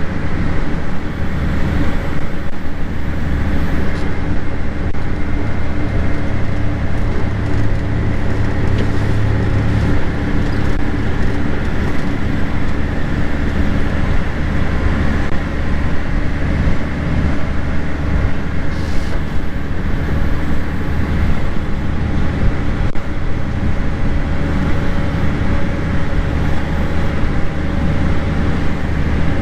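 Farm tractor engine running at a steady speed, a constant low hum that does not change.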